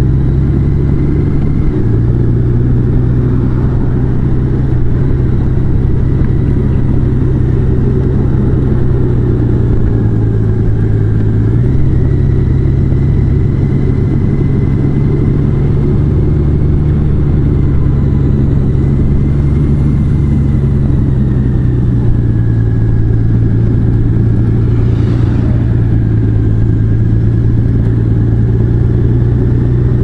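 Large motorcycle's engine running steadily while riding, its pitch dropping a little about two seconds in and rising again about twelve seconds in.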